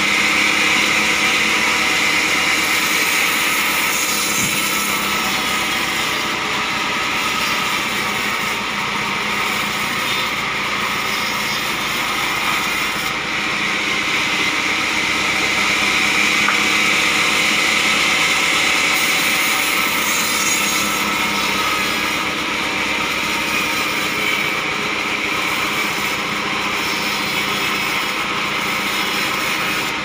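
Band sawmill running steadily while it cuts a block of acacia wood: a continuous machine drone with the hiss of the blade in the wood.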